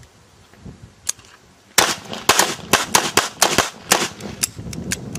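Rapid handgun fire at a pistol range: a single shot about a second in, then a fast string of sharp cracks, about four or five a second, running until near the end.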